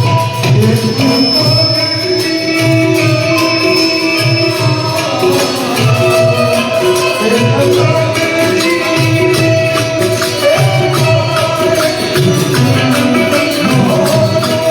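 Indian devotional song music: tabla playing a steady rhythm under a melody line.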